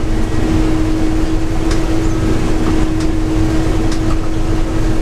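Bizon combine harvester running steadily under load while cutting oats, heard from inside its cab: an even engine and machinery rumble with a constant drone tone and a few faint ticks.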